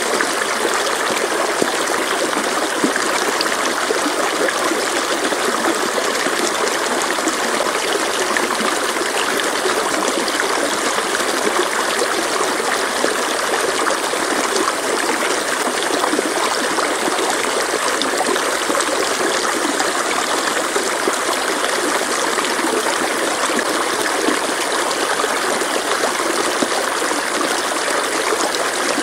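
A mountain stream running over rocks, a steady rushing and trickling of water that doesn't change.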